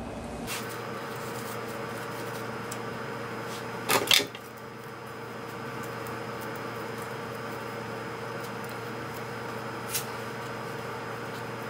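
Handling sounds from hair flowers being pinned into short hair: a sharp double click about four seconds in and a single smaller click near the end, over a steady room hum.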